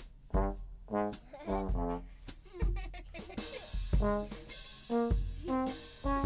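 Brassy stage music, trombone-like: a run of short, punchy notes, each landing on a low drum beat, with one note sliding down near the start.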